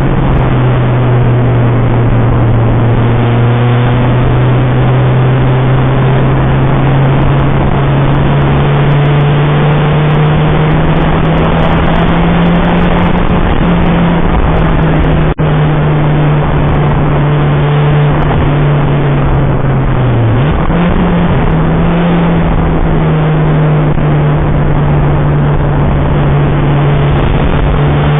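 Citroën Saxo VTR's four-cylinder engine running hard on track, loud and steady, its pitch climbing slowly over long stretches. About twenty seconds in the note dips briefly and then picks up again.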